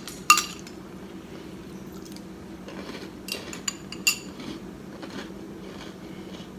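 A spoon clinking against a cereal bowl a few times, the loudest clink about a third of a second in and a cluster of lighter ones around three to four seconds, over a steady low hum.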